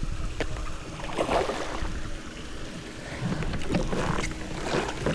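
Wind buffeting the microphone over water splashing and sloshing around a kayak, in several short bursts with a few light knocks.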